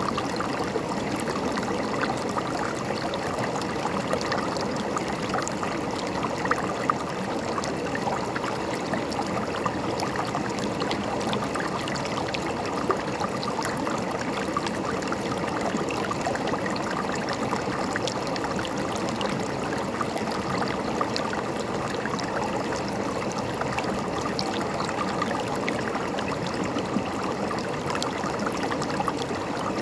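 River water flowing and gurgling steadily over rocks, with small splashes and trickles throughout.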